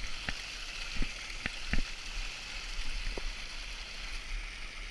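Steady rush of a small waterfall and its stream, with a few sharp knocks in the first few seconds.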